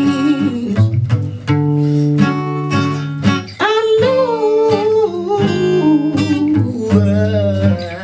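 Acoustic guitar strummed in slow, held chords, with a man's voice coming in about halfway through on a long sung line that slides and wavers in pitch before falling away near the end.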